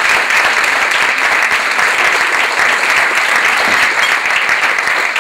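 Audience applauding, a steady, loud clapping.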